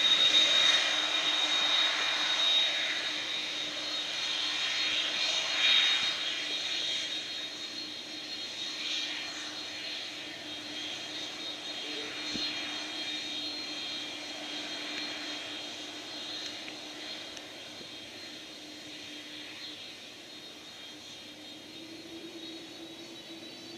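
Jet engines of a McDonnell Douglas MD-11 trijet at taxi power as it swings onto the runway: a steady high whine over a low hum, growing gradually fainter.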